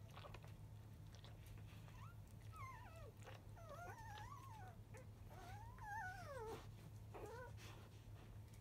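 Newborn Labrador Retriever puppies squealing in a run of faint, high, wavering cries, starting about two seconds in and stopping shortly before the end, while the mother licks them as they nurse.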